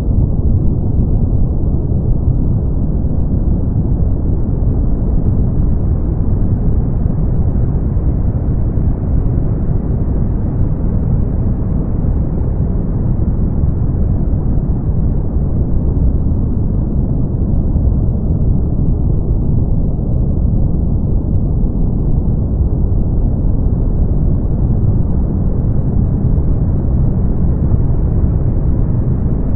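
Steady brown noise: a deep, even rushing hiss with nothing in the treble. Its top end gets a little brighter and then duller again, slowly, over many seconds.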